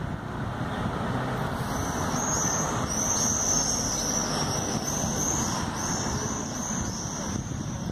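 Road traffic passing on a city street: a steady rumble of car noise. From about two seconds in, a run of high, quick chirping notes sits over it until near the end.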